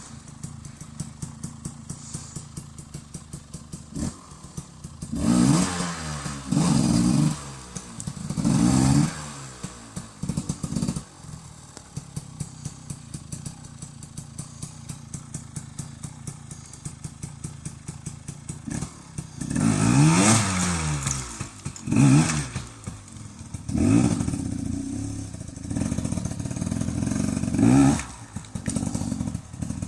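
KTM 250 enduro motorcycle engine revving in short bursts, each rising and falling in pitch, with a lower steady running note and a regular pulse between them. There are three revs fairly early, then a run of several more in the second half.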